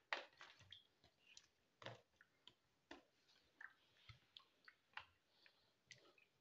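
Faint, scattered clicks and small wet splashes as raw chicken pieces drop into a bowl of water and are stirred with a wooden spoon.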